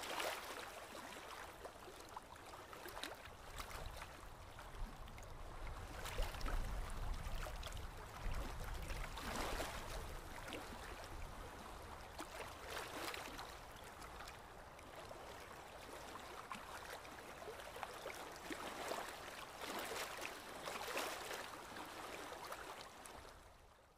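Small waves lapping and splashing against a concrete seawall, swelling every three seconds or so, with a low rumble for a few seconds in the middle.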